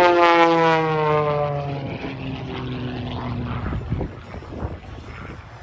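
Pitts S-1-11B aerobatic biplane's propeller engine passing close by, its pitch dropping sharply as it goes past, then fading as it flies away.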